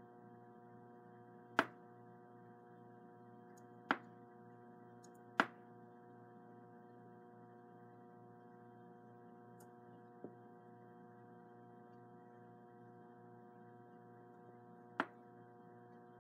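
Faint, steady electrical hum made of several even tones, with a handful of short, sharp light clicks scattered through it.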